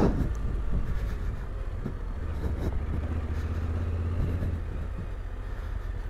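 Yamaha Ténéré 700's parallel-twin engine running as the motorcycle rides along a dirt track, a steady low rumble that swells a little midway.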